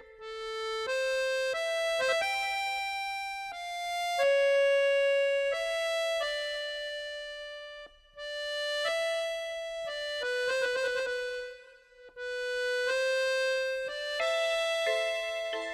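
Background music: a slow melody played on a keyboard instrument, one held note after another, with two brief pauses.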